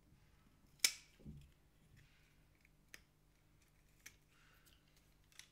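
Small sharp plastic clicks and snaps from a tool prying at the case of a Spektrum AR410 receiver to take it off. The loudest click comes about a second in, with a duller knock just after it and a few fainter ticks later.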